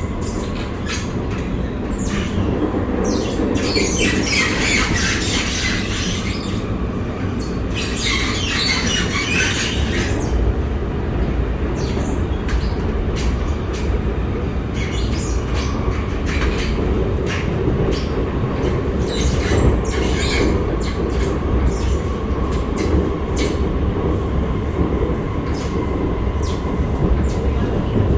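Interior of an R151 metro train running along the line: a steady rumble with frequent clicks from the wheels and track. About three seconds in and again about eight seconds in there are stretches of high-pitched hissing screech from the running gear.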